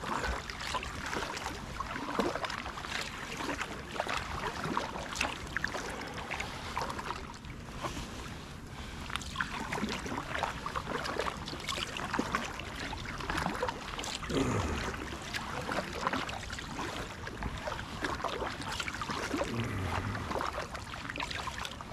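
Kayak paddle strokes: a double-bladed paddle dipping and pulling through calm water, with repeated small splashes and drips.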